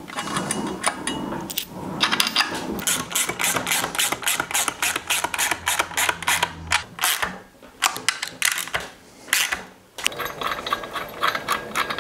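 Rapid mechanical clicking from a hand tool worked on the paramotor engine, in several bursts of a few seconds each with short pauses between them.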